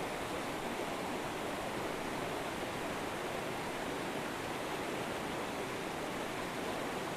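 A river's flowing water makes a steady, even rushing.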